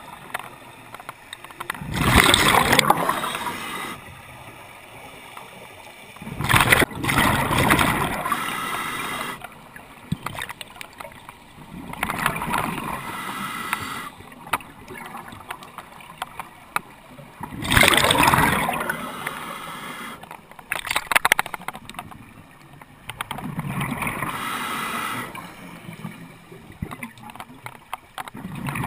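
Scuba diver breathing through a regulator underwater: exhaled bubbles rush and gurgle past in loud bursts about every five to six seconds, with a quieter hiss between breaths.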